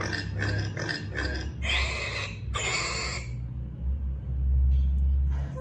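Domestic pig grunting and squealing: about four short calls in quick succession, then two longer squeals of nearly a second each.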